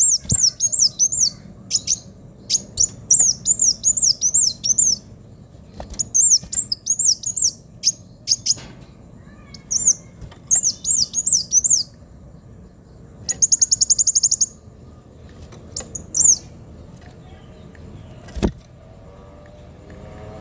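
A kolibri wulung sunbird singing in quick phrases of high, sharp, up-and-down chirps with short pauses between them, and a rapid buzzy trill about two-thirds of the way through. A single sharp knock sounds near the end.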